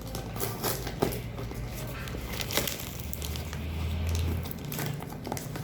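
Plastic parcel packaging crinkling and rustling as it is handled and pulled at, with irregular sharp crackles.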